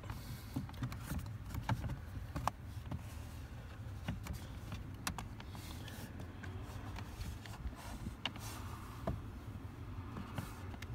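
Small clicks and taps of hands handling an LED strip's cable and the plastic under-dash trim in a car footwell, spaced irregularly over a steady low rumble.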